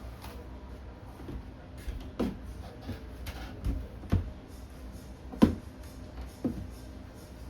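Handling sounds from unpacking a hinged glass aquarium lid: several separate knocks and clunks, the loudest about five and a half seconds in, over a faint steady hum.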